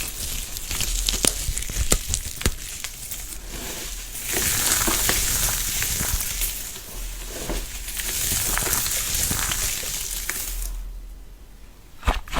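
Close-up crunching of a soft crafting material pressed and cut by hand: a few sharp clicks at first, then stretches of fine, crisp crackle, fading near the end.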